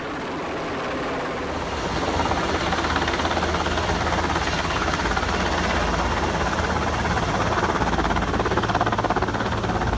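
Helicopter flying, a steady rotor and engine noise with a fast flutter, growing louder over the first couple of seconds and then holding steady.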